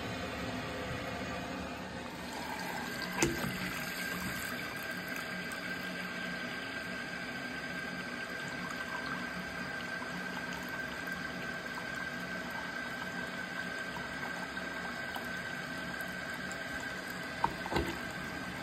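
Bathroom sink faucet running a steady stream into the basin, the water swirling down a newly replaced drain; a thin steady tone rides on the rush of water. A sharp knock sounds about three seconds in and two more near the end.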